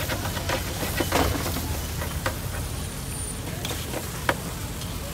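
Busy street market ambience: a steady low rumble and hiss, with scattered sharp clacks and faint voices in the background.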